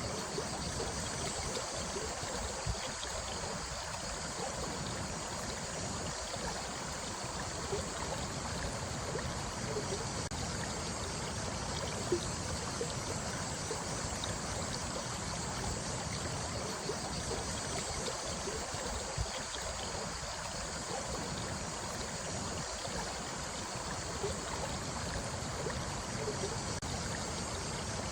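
Running water of a small stream flowing steadily, with occasional brief gurgles.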